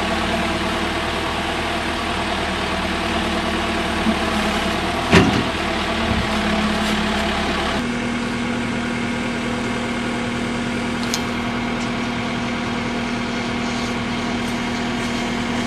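Backhoe loader's diesel engine idling steadily, with a single sharp knock about five seconds in.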